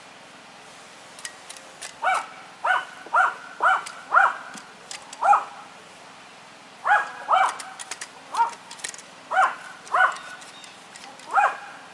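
A dog barking: about a dozen short barks in two bouts, the first starting about two seconds in and the second about seven seconds in.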